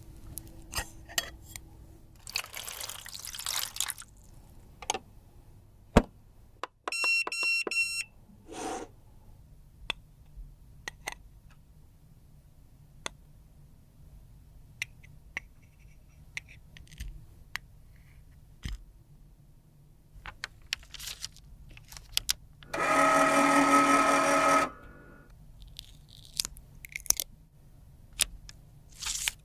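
Small clicks, taps and scrapes of makeup being worked by hand, with a quick run of electronic beeps a third of the way in and a loud steady motorised buzz lasting about two seconds near the end.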